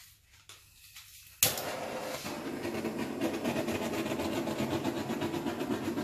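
A handheld torch, used to pop bubbles in wet acrylic pour paint, catches with a sharp click about a second and a half in. It then runs with a steady, fluttering rushing hiss.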